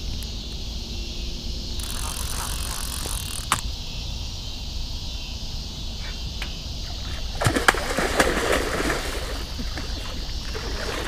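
Steady chorus of crickets. Over it comes a short hiss ending in a sharp click about three and a half seconds in, then a louder scratchy burst with several clicks around seven to nine seconds in, as a hooked catfish is fought at the reel and line.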